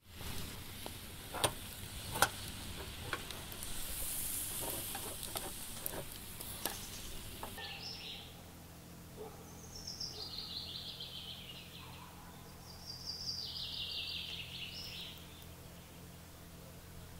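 Sausages sizzling on a hinged wire grill basket over a steel brazier, with two sharp metal clicks near the start as the grill is set down. Then a songbird sings two descending trilled phrases a few seconds apart.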